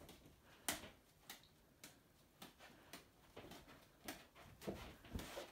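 Faint, regular ticking of a pendulum clock, about two ticks a second, in a near-quiet room.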